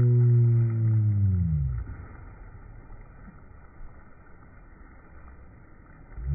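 A steady low hum slides down in pitch and fades about a second and a half in. A few seconds of faint, muffled noise with a couple of soft thumps follow, then the hum swoops back up in pitch near the end. The falling and rising pitch is typical of a phone's slow-motion clip, where the slowed section's sound is pitched down.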